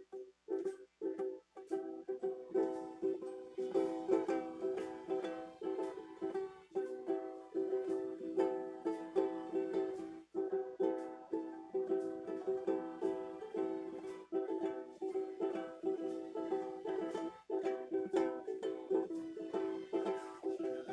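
Acoustic guitar strummed solo in an instrumental break: a few scattered strums, then steady, even strumming from about two seconds in.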